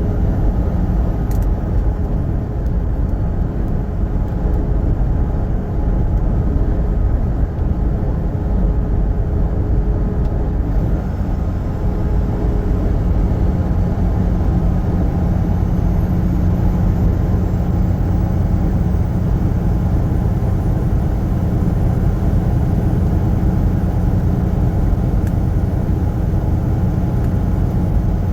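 Semi-truck driving along the highway: a steady, low rumble of engine and road noise.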